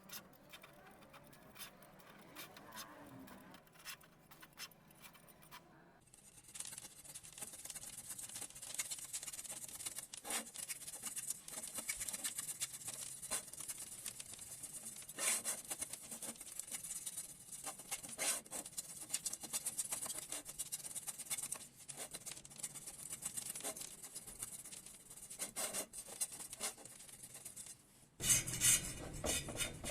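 Hand rubbing and scraping work: a steady high hiss of rubbing strokes with frequent small scrapes and clicks. It starts about six seconds in, is faint before that, and gets louder near the end.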